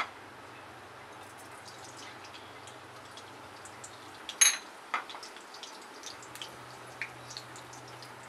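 Cumin and mustard seeds crackling in hot oil in a kadhai, the tempering step: sparse small pops that come more often in the second half. A short metallic clink rings out about four and a half seconds in.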